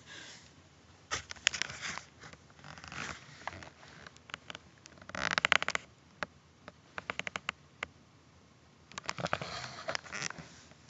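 Kitten rubbing and pawing against the recording device, its fur brushing close to the microphone: several bursts of scratchy rustling and rapid clicks, the loudest about five seconds in.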